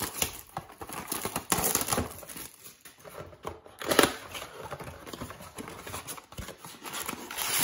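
Plastic shrink-wrap crinkling and tearing and cardboard rustling as a trading-card blaster box is unwrapped and opened, with a sharp rip about four seconds in.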